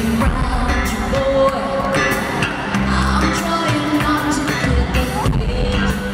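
Live pop-rock band playing with drums and bass while a woman sings lead into a microphone.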